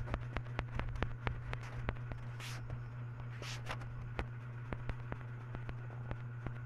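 Typing on a phone's touchscreen keyboard: quick, irregular clicks several times a second over a steady low hum, with two short hisses about two and a half and three and a half seconds in.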